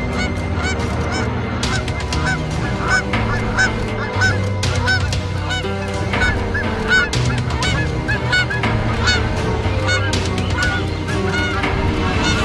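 Canada geese honking over and over, short rising-and-falling calls about two or three a second, in alarm at a black snake coiled on the eggs in their nest.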